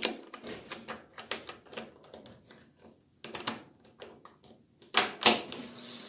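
Irregular light plastic clicks and knocks as the lid-lock actuator is pulled out of and handled in a GE top-load washer's lid switch. About five seconds in, water rushes into the tub for a second or so as the fill valve opens.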